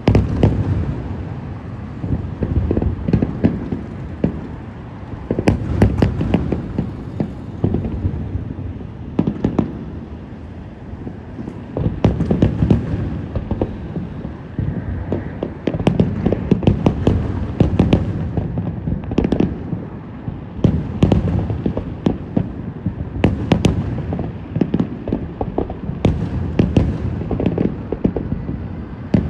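Fireworks display: rapid, overlapping loud bangs of bursting shells over a continuous low rumble, with a short lull about ten seconds in.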